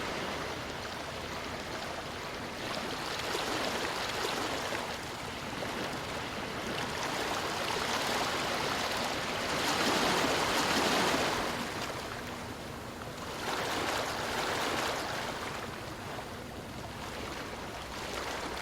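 Waves washing up on a beach: an even rush of surf that swells and eases every few seconds, the biggest wave breaking about ten seconds in.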